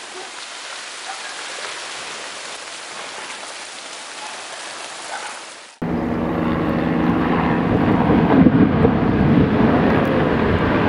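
A steady hiss of falling rain. Then, after a sudden cut about halfway through, a glacier face calving: a large mass of ice collapses into the water with a loud, deep rumbling crash and splash, loudest near the end, over a steady low hum.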